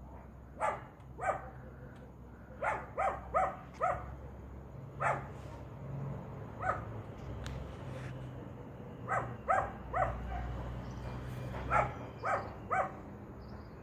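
A dog barking repeatedly, short barks in irregular runs of one to four, over a low steady hum.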